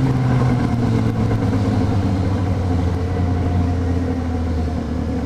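Yamaha XJ6 inline-four motorcycle engine running steadily at low revs, its pitch easing slowly down.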